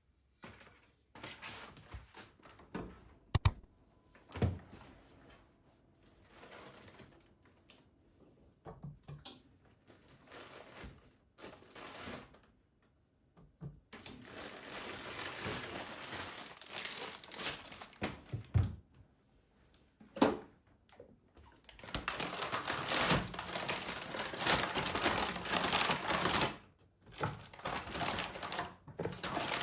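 Household handling sounds: scattered clicks and knocks, then two long stretches of rustling, crinkling noise.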